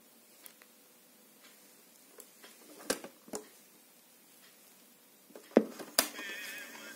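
Mechanical clunks of a Philips AM174 cassette player's piano-key play button being pushed down and latching, two loud clicks close together near the end, after a couple of lighter clicks. Right after, the tape starts to play, with a faint wavering tone as playback begins.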